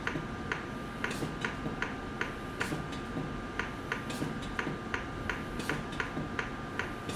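A regular run of short clicks, about three a second, from a CardioSave Hybrid intra-aortic balloon pump console as a touchscreen key is held down to step the deflation timing later. A faint steady high tone runs underneath.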